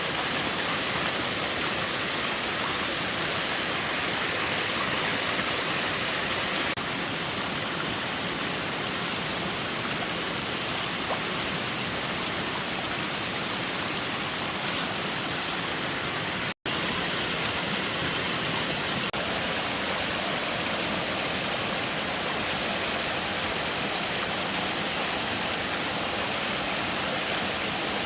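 Steady rush of water, an even hiss with no distinct events. It breaks off for an instant a little past halfway through.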